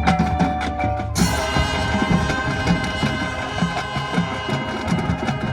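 High school marching band playing: percussion keeps a ticking rhythm, then about a second in the full band comes in with sustained chords over a steady drum beat.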